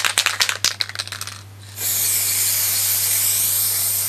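Aerosol spray paint can being shaken, its mixing ball rattling rapidly, then, about two seconds in, a steady spray hiss as a light guide coat of paint goes onto the primed car door.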